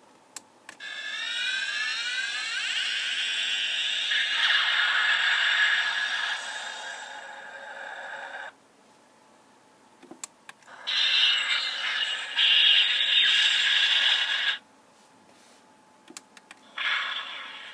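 Diamond Select Klingon Bird of Prey toy playing its built-in electronic sound effects through its small speaker: a sweeping rising effect that settles into a steady sound for about seven seconds. Button clicks follow, then a second effect of about four seconds and the start of a third near the end.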